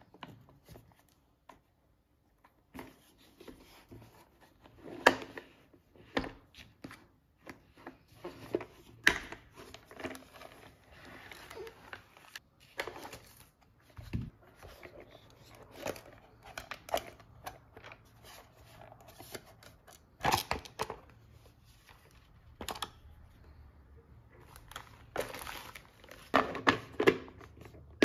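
Packaging being opened and handled by hand: irregular crinkling, tearing and rustling with sharp clicks and taps, a few louder than the rest.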